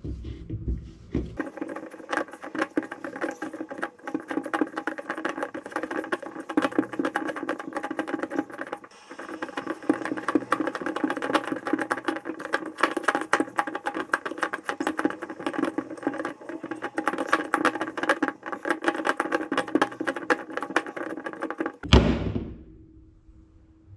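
Dough being kneaded by hand in a stainless steel bowl, played fast-forward: a quick, dense patter of squishing and knocking against the bowl, with the metal ringing. It stops abruptly about 22 seconds in.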